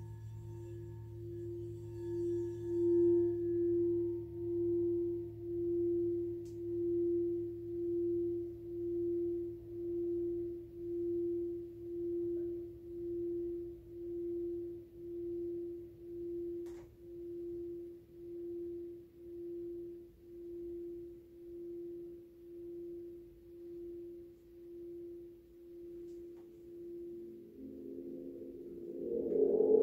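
Singing bowl ringing with one pure tone that swells and then slowly fades, wavering in a steady pulse just under once a second. Near the end a gong begins to swell in with a wash of deeper tones.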